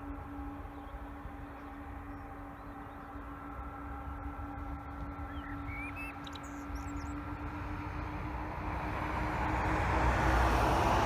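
Airbus A300-600 freighter's twin jet engines: a steady whine over a low rumble, the jet noise swelling and growing louder over the last few seconds as the aircraft draws near. A few faint bird chirps come through midway.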